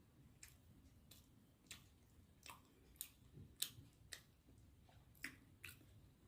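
Faint eating sounds: a person chewing food with open-mouthed smacks and clicks, about one or two a second at an uneven pace.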